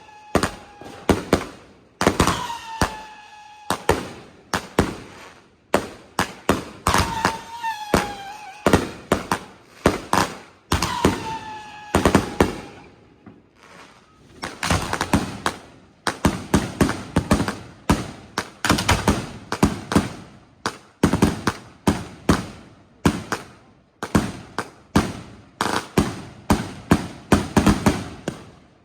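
Fireworks going off one after another in sharp bangs. In the first half several short falling whistles sound among them, and from about halfway the bangs come thicker and faster.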